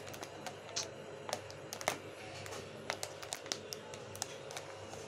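Thin plastic fish bag crinkling in irregular small clicks and crackles as fingers work a rubber band off its twisted neck.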